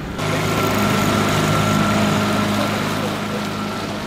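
Small outboard motor on an inflatable dinghy running under way, a steady engine hum over the rush of wind and water. It gets louder just after the start and eases a little near the end.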